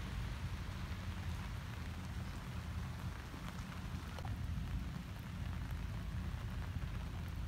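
Steady rain falling, with a few scattered drop ticks, over a constant low rumble.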